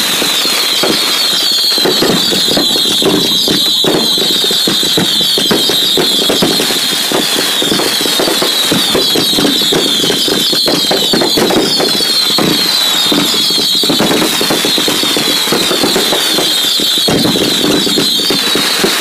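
Fireworks finale barrage at close range: a continuous chorus of overlapping high, shrill whistles over dense, rapid crackling and bangs, with no let-up.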